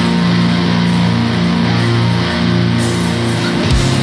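Stoner rock instrumental passage: heavy guitar and bass holding long low notes that shift in pitch every second or so, with a deep low hit near the end.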